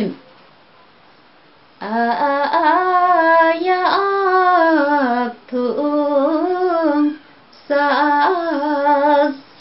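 A woman singing Hakpare samlo, a Limbu traditional song, solo with no accompaniment. The long drawn-out phrases bend and waver in pitch. They start about two seconds in and break off briefly twice.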